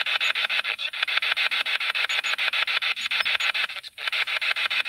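Spirit box (ITC research device) sweeping through radio frequencies: a fast, regular chopping of static at about ten pulses a second. It briefly drops out about four seconds in, then carries on.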